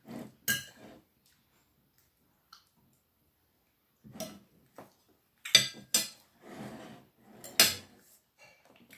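Metal knife and fork clinking and scraping on a plate while a soft pastry is cut, with a few sharp clinks spread through.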